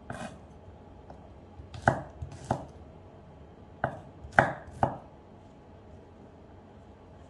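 Kitchen knife chopping shallots and garlic on a wooden cutting board: about six sharp knocks of the blade on the board in uneven groups over the first five seconds, then a pause.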